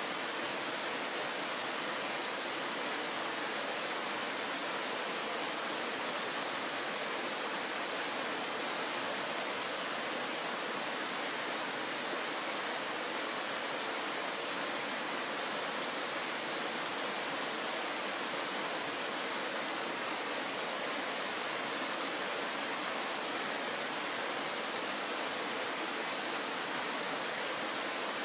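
Shallow mountain stream rushing over a stony bed through a small riffle: a steady, even rush of water that does not change.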